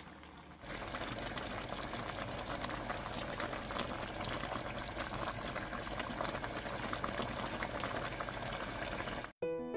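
Pork mechado stew simmering in its sauce in a pot: a steady bubbling with many small pops. It cuts off suddenly near the end, and piano music begins.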